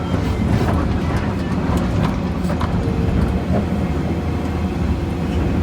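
Cat 345D excavator's diesel engine running steadily with a heavy low rumble, with a few short sharp knocks scattered through it.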